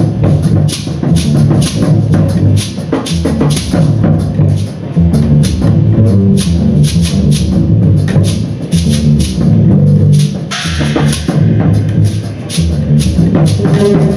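Live music dominated by percussion: dense, rapid drum strikes over low sustained tones, with a brighter, hissier stretch about ten seconds in.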